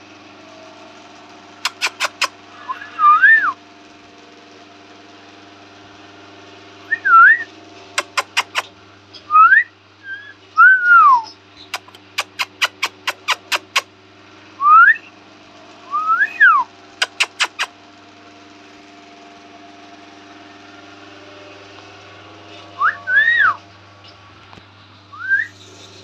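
Short, pure whistled notes that slide up and then down, about ten in all, scattered between quick runs of sharp clicks, over a steady low hum.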